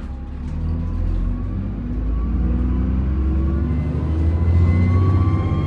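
Alexander Dennis Enviro400 (Trident) bus pulling away under power: diesel engine rumble building, with a thin turbo whine rising in pitch over it.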